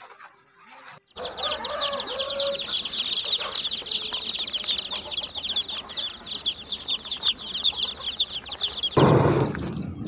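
A crowd of baby chicks peeping all at once: a dense, continuous chorus of high chirps, each dropping in pitch. It starts about a second in, after a moment of near silence, and near the end gives way to a louder, lower sound.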